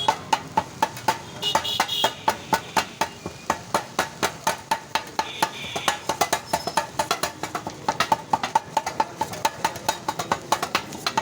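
Kothu parotta being chopped: two metal blades striking a cast-iron tawa in a fast, even clatter of about five or six clangs a second.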